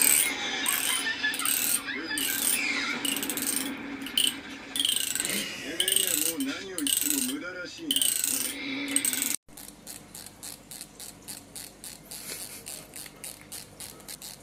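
Teeth of a hand-held comb being scraped and plucked next to cats, a dense scratchy ticking, with a wavering lower-pitched sound about six to eight seconds in. After a sudden cut, a softer, even ticking of about four to five clicks a second from another comb.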